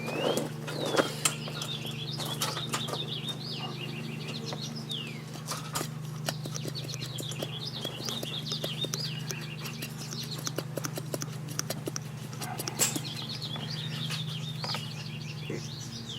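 Small birds chirping and twittering continuously, with scattered light clicks and taps over a steady low hum.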